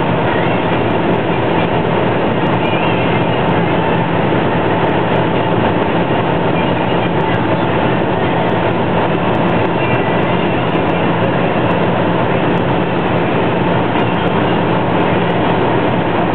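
Ford Focus Mk1 1.6 driven flat out near its top speed, heard from inside the cabin: the engine running at high revs under steady wind and road roar, with no change in pitch or level.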